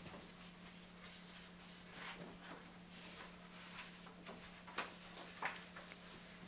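Faint, scattered light taps and rustles of hand work with gilding tools and paper on a table, with one sharper click near the five-second mark, over a steady low hum.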